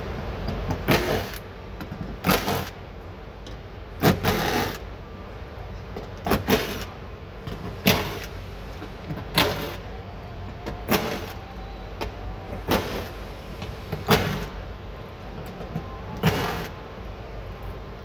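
Cordless power tool with a 10 mm socket backing out bolts from a car door frame. It runs in short bursts, about ten in all, roughly one every second and a half.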